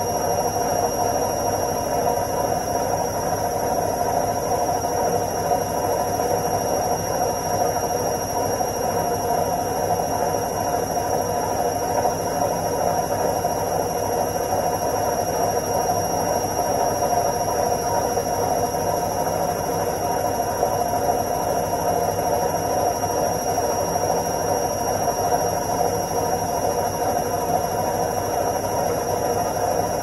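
Front-loading washing machine running steadily in its spin cycle, an even hum with no change in speed.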